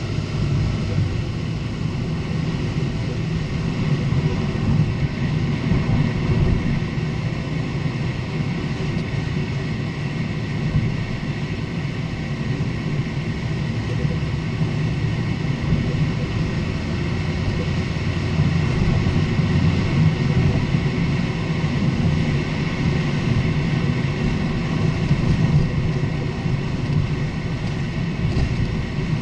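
A Lexus IS250 on the move: a steady low rumble of road and running noise.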